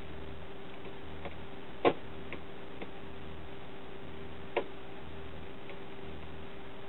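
A few sharp isolated clicks, the loudest about two seconds in and another about four and a half seconds in, over a steady low electrical hum with a faint even pulsing.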